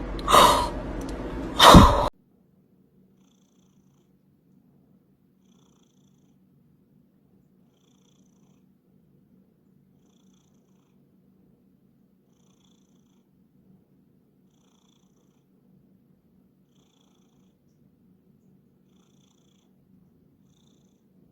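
Domestic cat purring softly and steadily, after two short loud sounds in the first two seconds.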